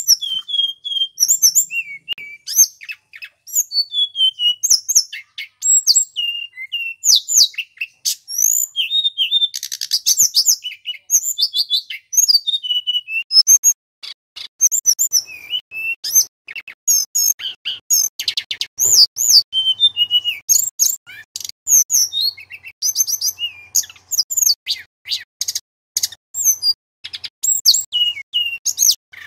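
Male tledekan gunung (hill blue flycatcher) singing a loud, varied song of clear high whistles and quick trills, phrase after phrase with only brief pauses.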